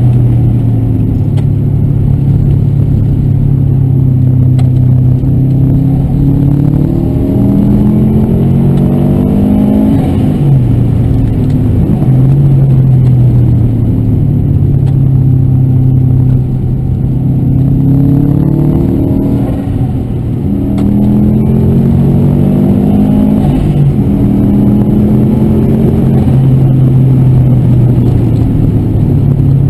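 Version 5 Subaru Impreza WRX STI's turbocharged 2.0-litre flat-four engine under way, heard from inside the cabin. The revs climb and fall back several times as the car drives along.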